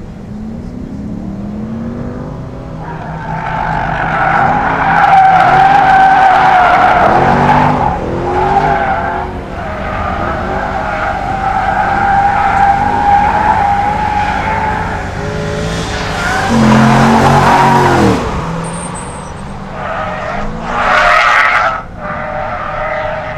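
Car tyres squealing through hard cornering, over the engine revving up and down as it is driven at the limit. The squeal is loudest twice, and near the end there is a short further squeal.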